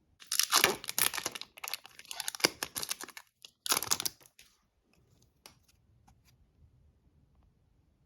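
Foil trading-card pack wrapper crinkling and tearing for about four seconds, with a short pause near the middle, then only a few faint ticks of cards being handled.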